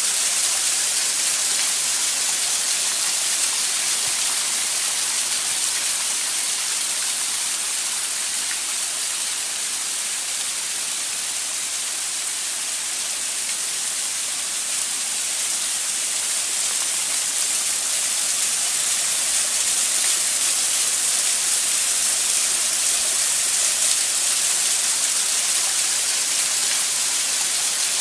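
Waterfall rushing steadily: a loud, unbroken hiss of falling water.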